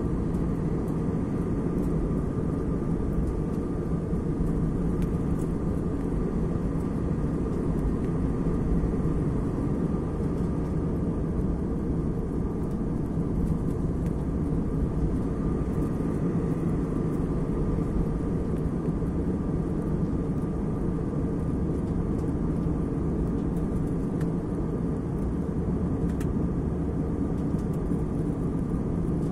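Steady drone inside a jet airliner's cabin in cruise: engine and airflow noise, mostly low, with a faint steady whine above it.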